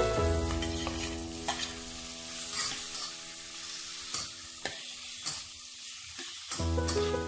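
Onions and ginger sizzling in oil in a metal pot while a slotted metal spatula scrapes and knocks against the pot, stirring in sliced tomatoes.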